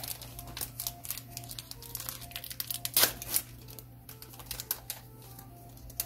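Foil wrapper of a trading-card pack crinkling and tearing as it is opened, in irregular crackles that are loudest about three seconds in.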